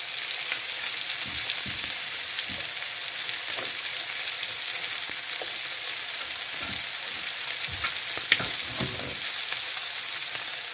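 Oil sizzling steadily in a non-stick frying pan as freshly added chopped onion fries among chicken liver, gizzard and sliced chilli. One sharp tap comes about eight seconds in.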